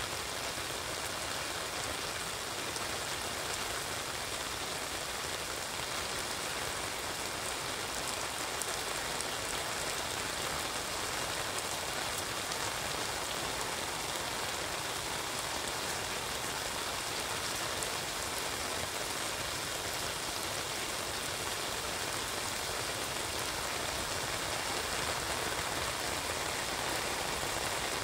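Heavy rain falling steadily on a wet paved street, a continuous even hiss and patter.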